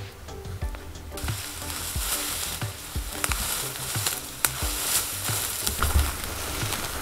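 Background music with a regular low beat; about a second in, a loud steady hiss cuts in over it and continues.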